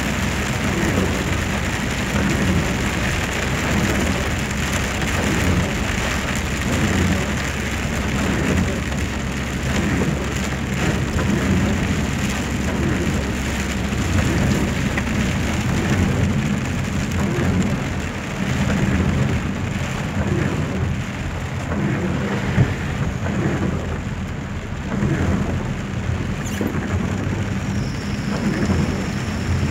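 Heavy rain pouring down, a dense steady hiss of falling water, with a low steady rumble underneath.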